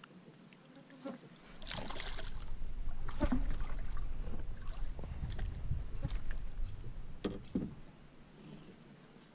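Low rumbling with scattered knocks and clatters, from about a second and a half in until near the end: gear being handled and moved about in a fishing boat.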